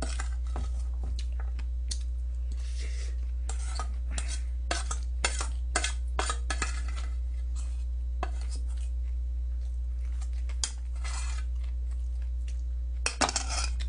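Metal spoon scraping and clinking irregularly against a stainless steel bowl as the last of the food is scraped out, over a steady low hum.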